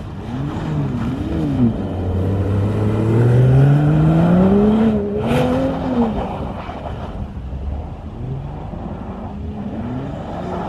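Mercedes-AMG E 53 coupé's turbocharged inline-six revving up and down in pulses of throttle as the car slides on snow and ice. The longest rise in pitch runs from about two to five seconds in, and a short hiss comes at its peak.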